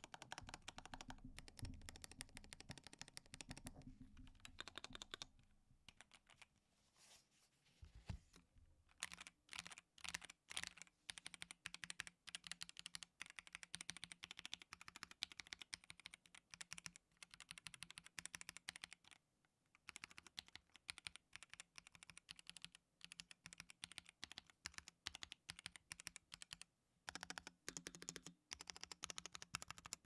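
Asus ROG Azoth mechanical keyboard with factory-lubed ROG NX Red linear switches being typed on, a fast run of sharp keystroke clacks with a couple of short pauses. In the first few seconds the keyboard is handled on the desk, with low rumbling knocks and a thump, before the typing starts.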